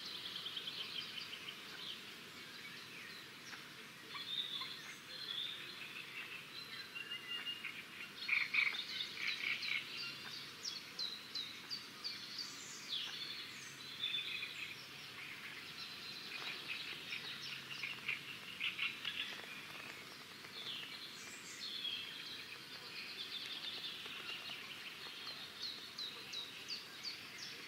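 Many small birds chirping and trilling together, an overlapping chorus of short calls and rapid ticking trills.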